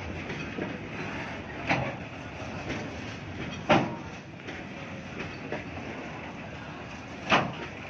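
Open freight wagons of a passing goods train rolling by on the rails: a steady rumble and rattle, broken by three sharp, loud clanks at about two, four and seven seconds in.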